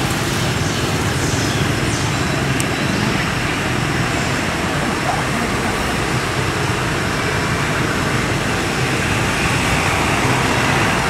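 Steady outdoor background noise, an even rushing hiss that holds at the same level throughout.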